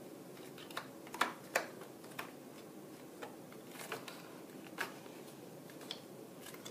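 Scattered small clicks and taps of a TV's cover and fittings being handled and seated by hand, with two louder knocks a little over a second in.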